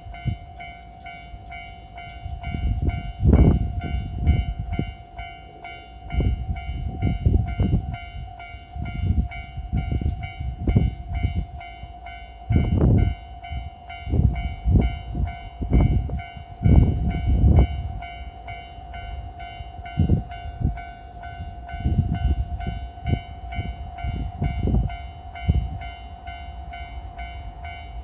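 Railway level-crossing warning alarm ringing steadily, an evenly repeating electronic ding with several tones, while irregular low rumbling gusts come and go over it.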